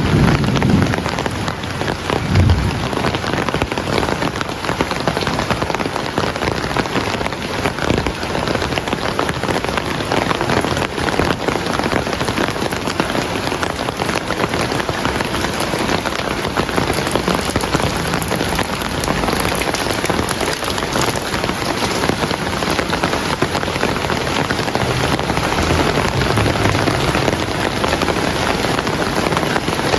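Heavy rain falling steadily, a dense, even hiss of drops on surfaces, with a few low thumps in the first few seconds.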